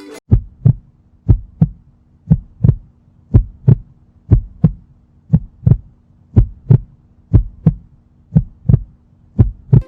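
Heartbeat sound effect: deep paired lub-dub thumps, about one pair a second, over a faint steady hum, building suspense as the package is opened.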